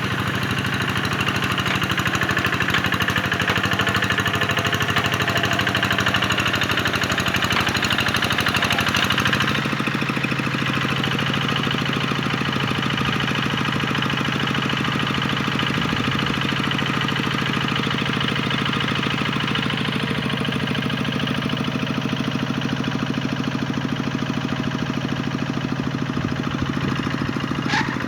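Tractor engine running steadily with a knocking clatter; about a third of the way in its note drops and settles lower.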